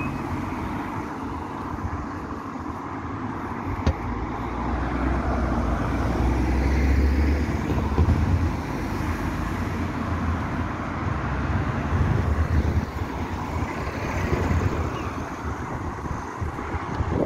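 Road traffic on a town street: cars driving past, engine and tyre noise swelling and fading as they pass. A single sharp click about four seconds in.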